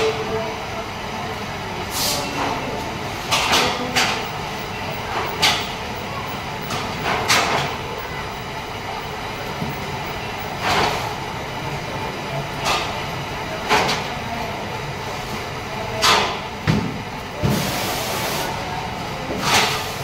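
Factory floor noise: a steady hum of machinery broken by irregular clacks and knocks, about a dozen in all, some with a short hiss, and a longer hiss of air near the end.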